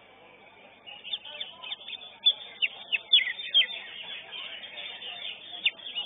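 Greater green leafbird (cucak hijau) singing in competition: a rapid string of short, sharp, high notes, many falling in pitch, beginning about a second in.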